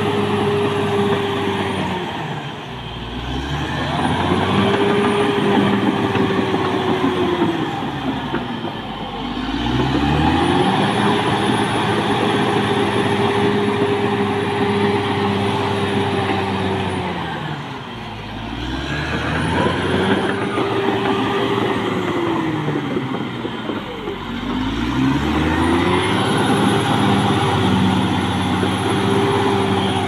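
Caterpillar D6R XL bulldozer's diesel engine working, its revs sagging and climbing back four times. A faint high whine rises and falls with the engine.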